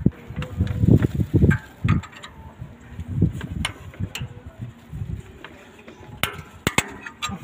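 Hand wrench working on the rocker-arm fasteners of an excavator diesel engine: irregular low bumps and knocks of handling, with several sharp metallic clicks near the end.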